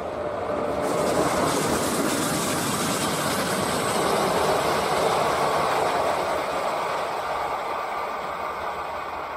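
SBB Re 620 (Re 6/6) six-axle electric locomotive running light past on its own. The sound grows about a second in and fades over the last few seconds as the locomotive moves away.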